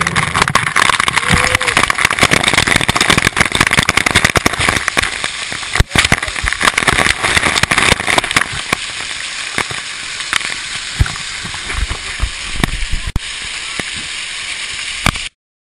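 Loud, steady rushing and crackling from a speedskate's onboard camera, with many sharp clicks and knocks, likely skateboard wheels rolling on asphalt with wind on the microphone. It cuts off suddenly near the end.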